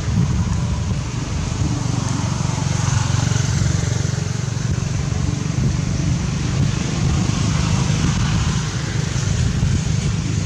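Wind buffeting the microphone: a steady low rumble with hiss.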